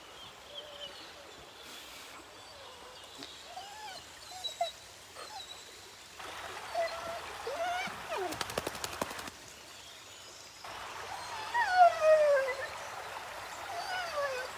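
A dog whining in high, falling, drawn-out whimpers, loudest about two-thirds of the way in, over the steady rush of a stream.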